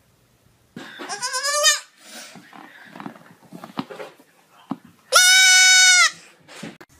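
Baby goat bleating twice. About a second in it gives a quavering bleat, and near the end a loud, steady, high bleat lasting about a second.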